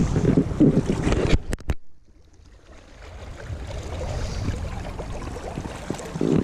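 Wind buffeting the camera microphone over a flowing river. The buffeting cuts out after two sharp clicks about a second and a half in, and the softer, steady rush of the moving river builds back in.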